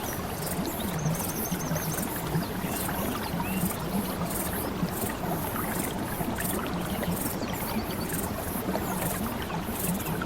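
Steady rush of flowing water, with a short run of rapid high notes, a trill, heard about a second in and again near the end.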